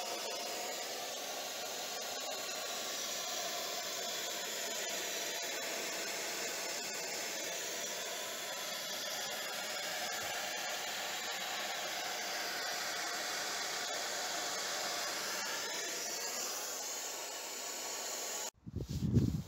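A steady whooshing hiss of moving air from a running fan-type motor, cutting off suddenly near the end.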